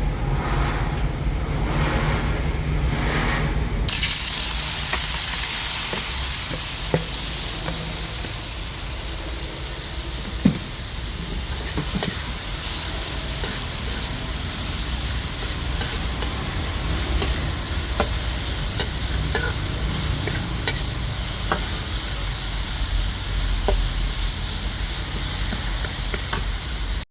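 Chicken frying in hot oil: a loud, steady sizzle starts abruptly about four seconds in, with scattered sharp clicks of a utensil against the pan.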